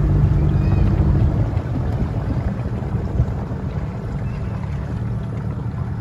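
Small boat's outboard motor running at low speed, a steady low hum that eases off a little about a second and a half in.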